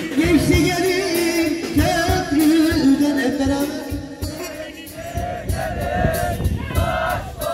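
Turkish ağırlama halay dance music: a man singing a bending folk melody over a steady drum beat.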